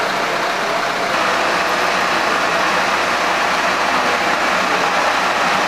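Fire engine running at idle: a steady low engine hum under a constant rushing noise.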